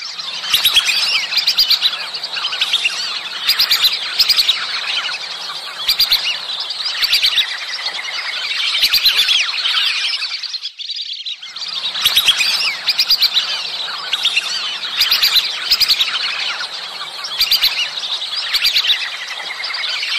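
A flock of whistling ducks calling: many high, clear whistles overlapping in a dense chorus. The calling breaks off briefly about eleven seconds in, then starts again.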